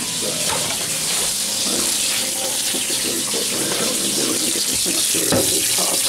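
Kitchen tap running steadily into a stainless steel sink.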